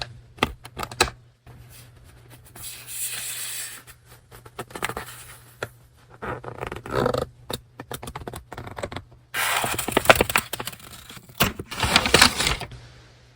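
Paper and stationery being handled by hand: rustling, sliding and crinkling in several bursts, with small taps and clicks between them.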